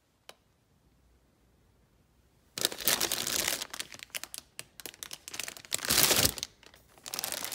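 Clear plastic bags of model-kit sprues crinkling as they are handled and pushed into a cardboard box. The crinkling starts suddenly about two and a half seconds in, after a near-silent stretch, and goes on in irregular bursts.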